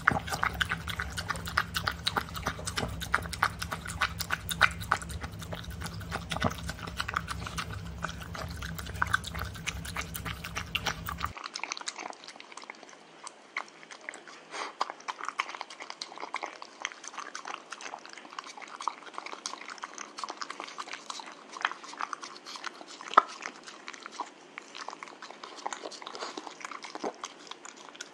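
A dog eating soupy wet canned food from a plastic bowl: steady wet chewing with many quick clicks and smacks. A low background hum cuts off suddenly about eleven seconds in.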